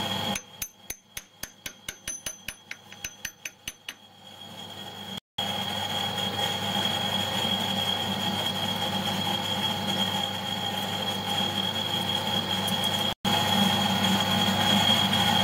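Metal-turning lathe running with a steady hum and a high whine while trepanning a steel ring blank. In the first few seconds the hum drops away and quick, even ticks take its place, about five a second.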